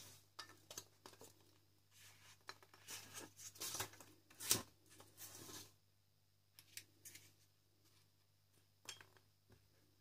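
Faint rustling, scraping and clicking of packaging being handled: packing peanuts, a foam insert and the cardboard box, in a run of short rustles that is busiest in the middle and thins to a few clicks near the end.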